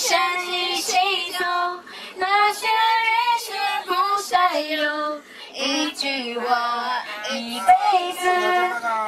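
A high voice singing a melody in held notes that bend and glide between pitches.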